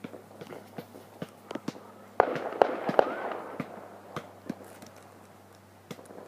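Fireworks going off, with scattered sharp pops throughout. A loud bang comes about two seconds in, then two more bangs close after it, followed by a crackle that fades over the next second or so.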